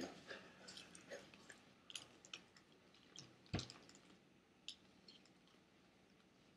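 Near silence with faint mouth clicks from chewing and one soft knock about three and a half seconds in.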